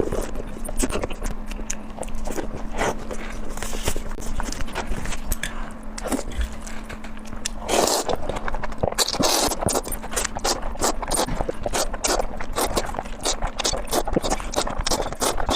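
Metal spatula clanking and scraping against a wok in quick, irregular strokes as street-cart Hakka noodles are tossed and stirred, with a stretch of hissing about halfway through.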